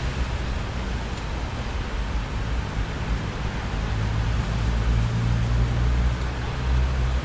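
Steady rain with a low, continuous rumble of thunder that swells about four seconds in.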